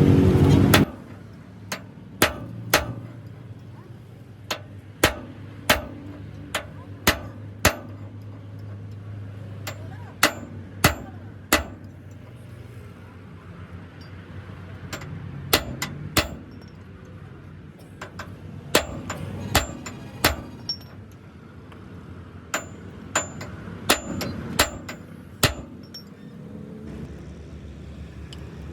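Hammer blows on metal: about two dozen sharp strikes in short runs of two or three with pauses between, some leaving a brief high metallic ring. A loud engine-like noise cuts off under a second in.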